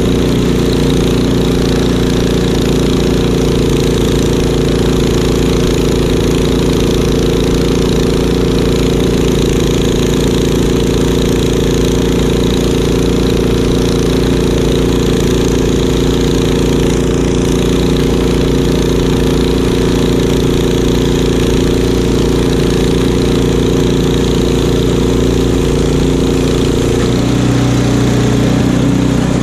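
Craftsman two-stage snowblower's gas engine running steadily under load as it chews through deep snow and throws it from the chute. The engine note changes about two seconds before the end.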